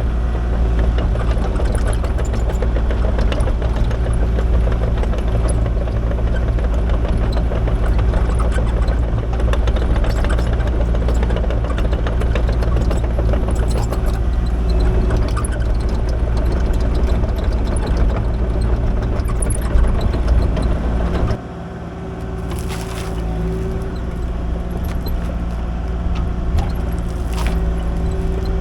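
Kubota KX040 mini excavator's diesel engine running steadily under work. About three-quarters of the way through the sound suddenly gets quieter, then slowly builds again.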